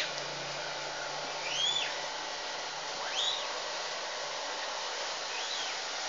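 Steady rushing noise of an electric blower running, with a short chirp that rises and falls in pitch four times.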